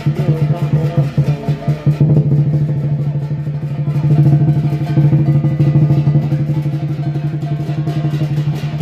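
Lion dance percussion: a large Chinese drum beaten in a fast, steady roll, with cymbals clashing along with the strokes.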